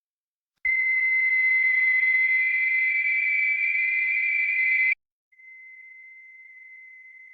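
Postal scale's electronic beeper: a click, then one long, steady, high-pitched beep of about four seconds that cuts off suddenly. After a short gap, a much fainter steady beep at the same pitch follows.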